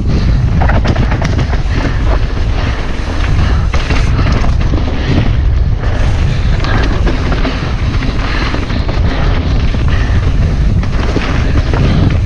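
A mountain bike rides fast over a rough dirt singletrack, heard through a bike- or helmet-mounted camera: a loud, steady low rumble of wind and trail buffeting, with frequent knocks and rattles as the bike goes over bumps.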